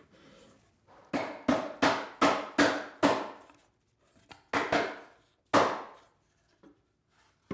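Small mallet tapping plywood parts of a tab-and-slot tote to seat the joints. It strikes six quick taps, pauses, then strikes three more.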